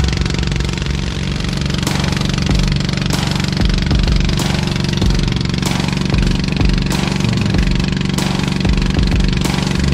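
Engine of a motorized bangka running steadily at towing speed, heard from on board the boat.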